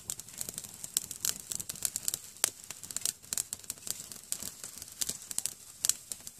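Small dry twigs crackling and snapping as a handful is fed onto a wood fire burning in a hobo stove: irregular sharp clicks and snaps, several a second.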